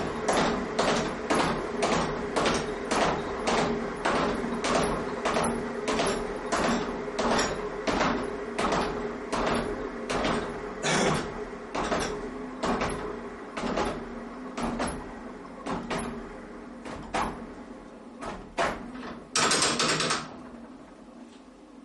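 Home-built gravity flywheel machine with two weighted swinging arms coasting down: a knock with each turn, about two and a half a second at first, coming slower and fainter, over a steady low hum that fades away. A short rushing noise near the end.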